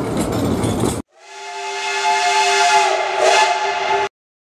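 A brief rushing noise, then a diesel locomotive's horn sounding one long, steady chord of about three seconds over a hissing rush of wind and snow, cut off abruptly.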